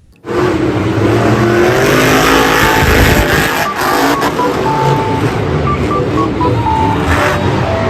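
Loud, continuous engine noise of a monster truck running, with a few short high tones over it.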